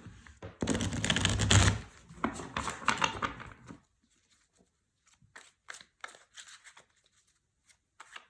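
A deck of tarot cards being shuffled by hand: a dense rustle of cards for about three seconds, then a few light, scattered clicks as the deck is handled.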